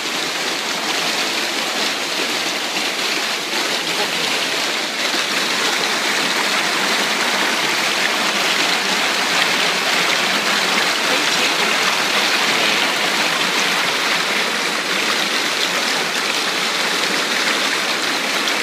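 Shallow stream running over flat rock slabs: a steady, loud rush of water.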